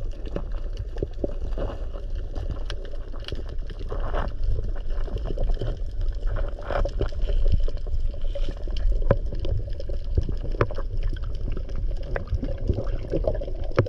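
Water sloshing and splashing, with scattered knocks and clicks over a steady low rumble.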